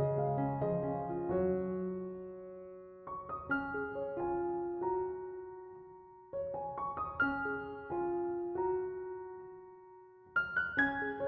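Background piano music: soft arpeggiated phrases that begin roughly every three seconds and fade away between them.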